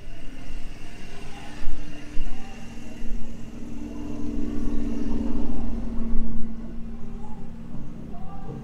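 Car engine running steadily at a moderate speed over a low rumble; its hum rises a little in the middle and eases off near the end.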